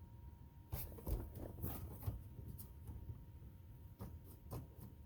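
A few faint, scattered clicks and taps over a faint steady tone.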